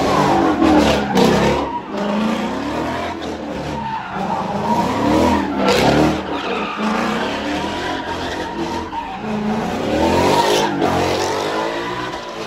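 A car doing donuts: the engine revs up and down again and again while the rear tires squeal without a break as they spin and slide.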